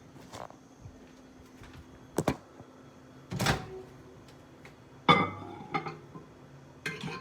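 A bowl being put into a microwave oven and the microwave door handled: about six sharp knocks and clunks spread over several seconds, the loudest around 3.5 and 5 seconds in.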